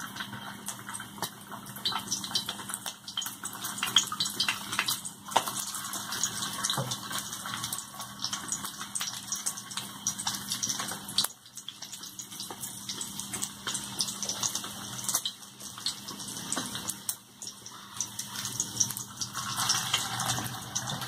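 Egg-coated fish cutlets shallow-frying in hot oil: a steady sizzle with frequent small crackles and pops.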